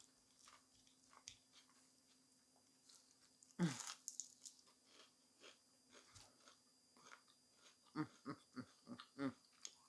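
A fried onion ring being bitten and chewed. There is a sharp crunch about three and a half seconds in, small soft chewing clicks, and a quick run of about six short mouth sounds near the end.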